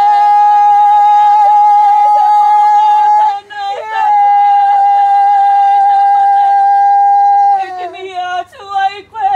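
Pūtātara (conch shell trumpet) blown in two long steady notes, the first breaking off about three seconds in and the second held until nearly eight seconds in, calling the procession over the threshold. A voice chants or calls alongside it.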